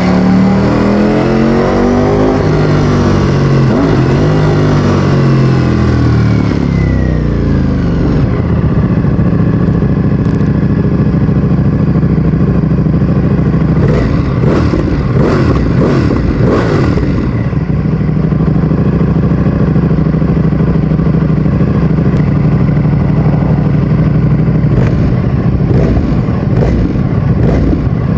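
Ducati Streetfighter V4S's 1103 cc Desmosedici Stradale V4 engine running through an Akrapovic exhaust. Its pitch swings up and down for the first several seconds, then it runs steadily, with short rises and falls in revs around the middle and again near the end.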